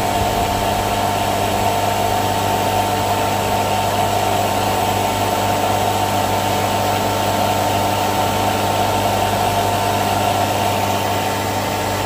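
NAVAC NR7 refrigerant recovery machine running steadily on its fast setting while it pulls refrigerant out of an air-conditioning system: an even hum with a hiss over it, unchanging throughout.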